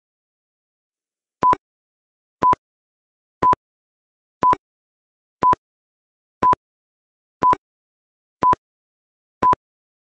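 Countdown timer beeps: a short electronic beep of one steady pitch, once a second, nine times, ticking off the seconds of a quiz countdown.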